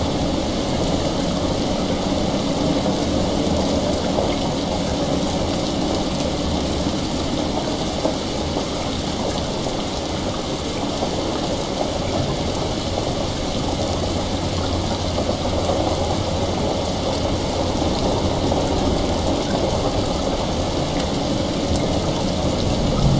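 Steady heavy rain, an even hiss with a low rumble underneath.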